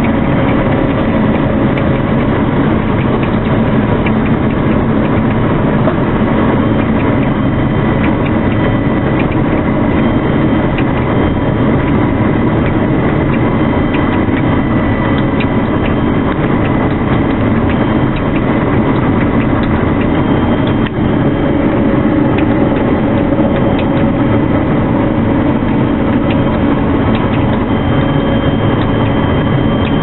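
Claas Lexion 520 combine harvester running steadily under load while cutting barley, heard from inside the cab: a loud, even mechanical din of engine and threshing machinery with a faint steady whine.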